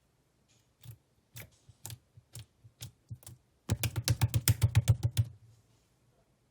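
Opaque peach yogurt slime being pressed and squeezed by hand, giving sharp clicking pops: a few scattered clicks, then a quick run of louder clicks, about nine a second, for a second and a half past the middle.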